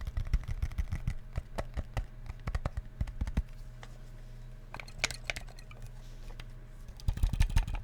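Fingers tapping and clicking on an old grunge guitar effects pedal. The taps come in quick, irregular runs for about three and a half seconds, pause, then start up again near the end. A low electrical hum sits underneath.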